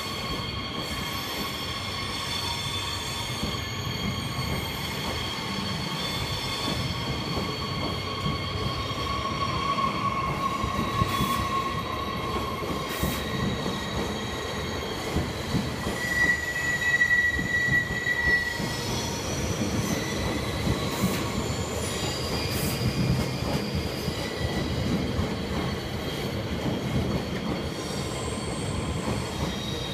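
Regional passenger train rolling slowly along a station platform: its wheels squeal in several steady high tones over a low rumble of the running gear, one squeal growing louder for a couple of seconds about halfway through.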